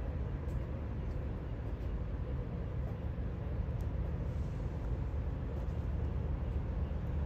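Steady low engine rumble with a faint even hum above it.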